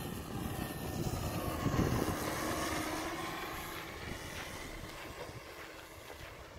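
The electric motor and propeller of a 15-foot Telemaster RC plane whine as it flies a low pass. The sound is loudest about two seconds in, then its pitch drops as the plane goes by and fades away.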